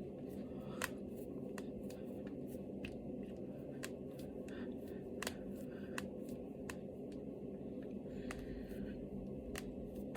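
Finger joints and knuckles cracking: about a dozen sharp pops at uneven intervals, the one about a second in louder than the rest, over a steady low room hum.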